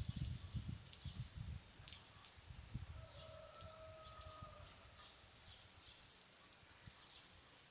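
Light rain falling, heard as scattered drips and ticks, with a low rumble that fades out over the first two seconds. About three seconds in, one held animal call lasts a second and a half.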